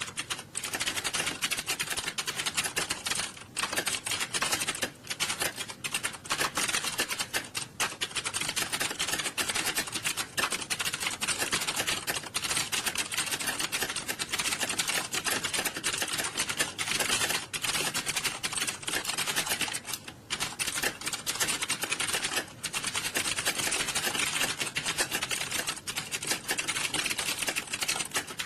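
Many computer keyboards being typed on fast and continuously at once, making a dense clatter of overlapping key clicks. The clatter thins briefly a few times.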